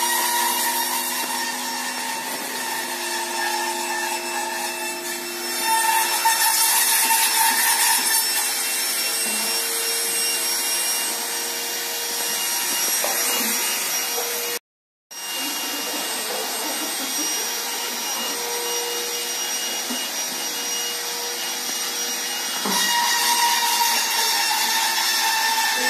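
Steady workshop machine noise: a whirring hiss with several held humming tones, louder for a couple of seconds about six seconds in and again over the last few seconds. The sound cuts out for a moment about halfway through.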